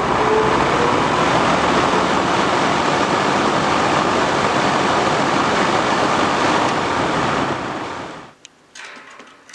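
Drum fan running steadily with a loud, even rush of air, cutting off abruptly about eight seconds in, followed by a few faint clicks.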